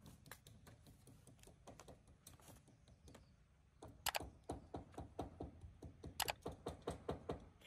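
A run of faint, irregular light clicks and taps, sparse at first and coming faster and louder from about four seconds in.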